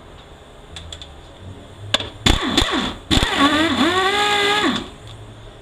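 Air impact wrench on the 3/4-inch band adjuster nut of a 46RE automatic transmission: a few sharp rattling blows a little over two seconds in as the nut breaks loose, then the tool spins up and runs freely with a steady whine for about a second and a half before stopping.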